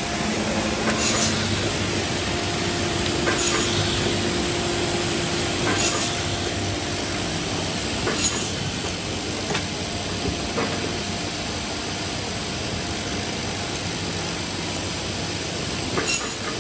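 Automatic woodworking machine that cuts and drills wooden corner blocks, running steadily with motor hum and hiss, and sharp knocks every second or two as it works.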